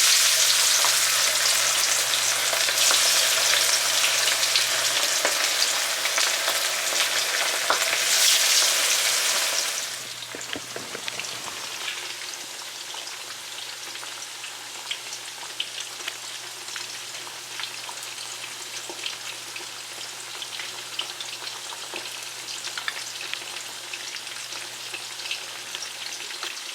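Food frying in a pan of hot oil: a loud, dense sizzle that drops to a quieter sizzle with scattered crackles about ten seconds in.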